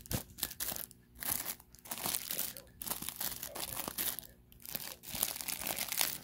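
Clear plastic snack wrappers crinkling as a hand handles and moves individually wrapped pecan spinwheel pastries, in irregular spells with a few brief pauses.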